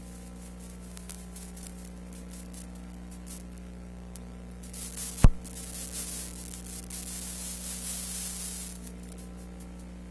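Steady electrical hum under hiss and scattered crackles, with one sharp loud click about five seconds in, followed by a few seconds of louder hiss and crackle.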